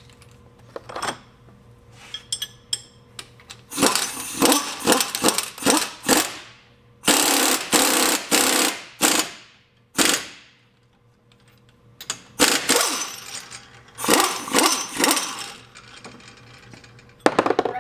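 Pneumatic impact wrench hammering in about six bursts of one to two seconds each, driving a threaded press tool that draws the wheel hub into a new front wheel bearing.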